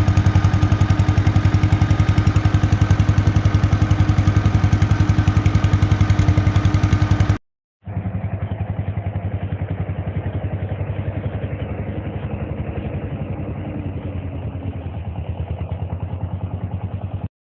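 1948 John Deere Model M's two-cylinder engine running steadily under way, with an even, rapid exhaust pulse. It drops out briefly about seven seconds in, then carries on sounding duller and a little quieter.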